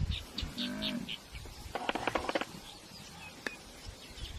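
Birds chirping in short high notes, with a brief buzzy, rapidly pulsed animal call about two seconds in.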